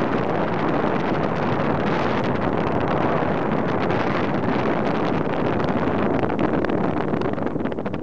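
Steady wind rushing over the camera microphone in flight under a mini paraglider wing.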